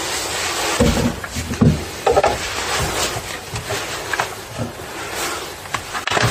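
Handling noises from a Stihl MS 180 chainsaw with its engine off: the plastic housing and handle knocking and scraping on a concrete floor as the saw is turned over and its rear controls are worked by hand. Irregular knocks and rubs, the loudest about a second and a half in.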